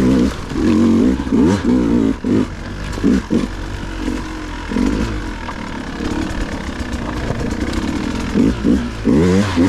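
Dirt bike engine revving in short throttle bursts, its pitch rising and falling again and again, with a steadier, lower-revving stretch in the middle before the bursts pick up again near the end.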